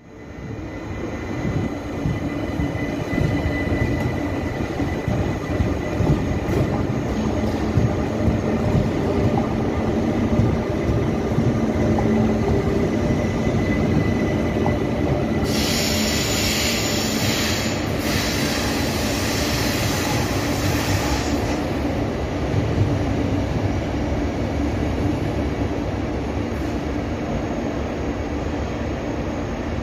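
Electric multiple unit running along the station tracks, its wheels rumbling steadily on the rails. About halfway through, a loud high hiss or squeal joins in for about six seconds.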